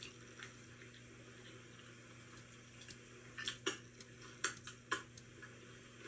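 Quiet mouth sounds of someone eating french fries: chewing with a cluster of sharp, wet smacks and clicks a little past halfway, over a low steady hum.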